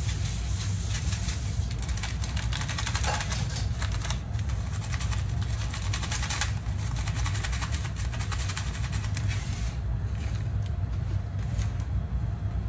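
Pot of vegetable broth boiling on a gas stove: a steady low rumble under dense crackling bubbles, the crackle easing a little about ten seconds in.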